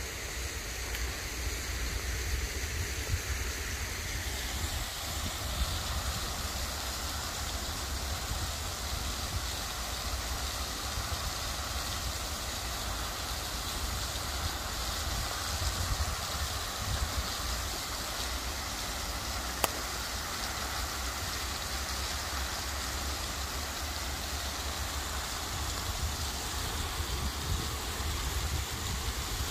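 Steady hiss of fountain jets splashing into a pond, growing a little brighter a few seconds in, over a low rumble, with a single sharp click about twenty seconds in.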